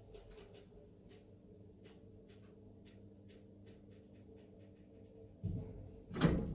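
Lift running with a low steady hum and faint scattered ticks, then a thud and, just before the end, a sharp clunk.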